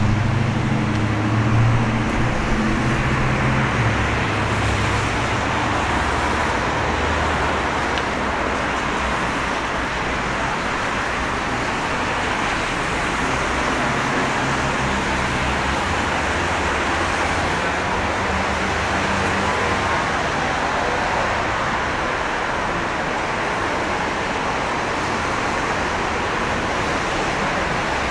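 Steady hiss of rain and traffic on a wet city street, with a vehicle's low rumble strongest in the first few seconds and again around the middle.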